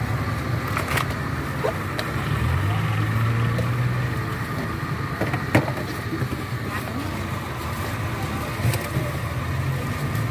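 Steady low engine hum with a few sharp clinks of ice being scooped into a plastic cup.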